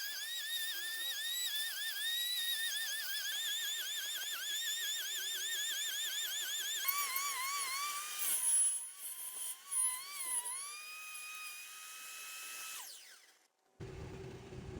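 High-pitched whine of a small high-speed rotary tool, its pitch dipping again and again as it bites into the work. About halfway through the pitch drops lower and keeps wavering, then steadies and winds down before the sound cuts off. A lower mechanical rattle starts near the end.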